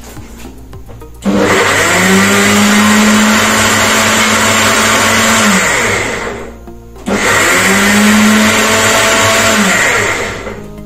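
An 8500W Kenwood countertop blender is run twice while blending orange pieces. Each time the motor whines up to speed and runs steadily, for about five seconds the first time and three the second, then winds down. There is a short pause between the runs.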